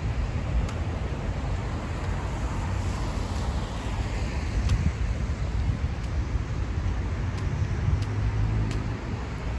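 City street ambience: a steady low rumble of road traffic, with a few faint sharp ticks.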